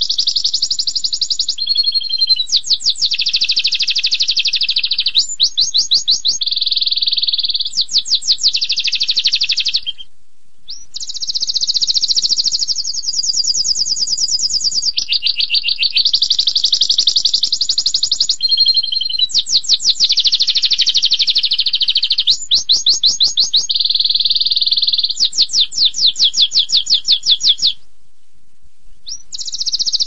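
Domestic canary singing a long, continuous song of fast trills and rolling phrases in high notes, with short breaks about ten seconds in and again near the end.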